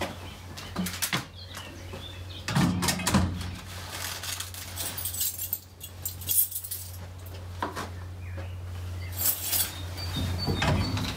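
Clinks and rattles of wire driving-range ball buckets being handled, and rustling as a golf glove is pulled on, over a steady low hum.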